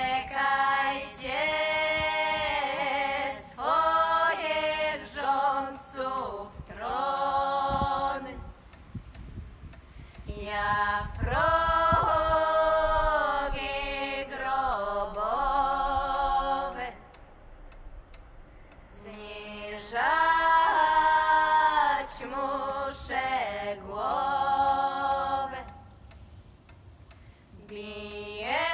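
Unaccompanied singing of a song in Polish: long held, gliding phrases with short pauses between them.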